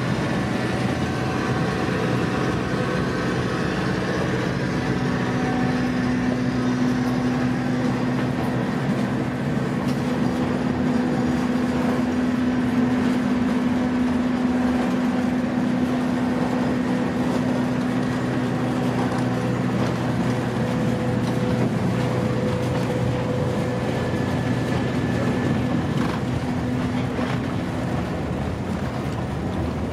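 Steady rumble of a train heard from inside a wooden passenger car (business car #100, built 1913), with a low, even hum running under it.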